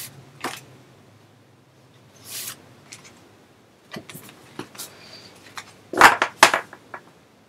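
Large stiff photo cards being handled and slid against each other: a few brief rustles and taps, with the loudest pair about six seconds in.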